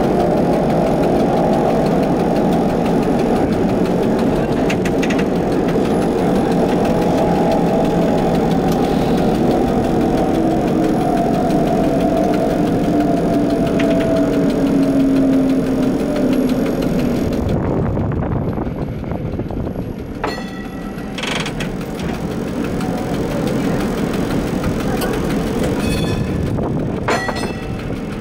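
1960 Bern Standard streetcar running on street track, its motor and gear whine slowly falling in pitch as it slows. Then it rolls on more quietly, with a few short sharp clicks or rings in the second half.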